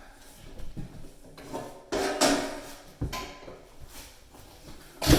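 Knocks and rattles of hard parts being handled and set down, a few separate clatters with the sharpest knock near the end.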